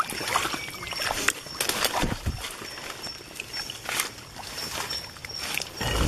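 Footsteps sloshing and splashing through shallow water and wet leaf litter on a flooded forest floor, an irregular run of splashes and knocks with a heavier low thud about two seconds in.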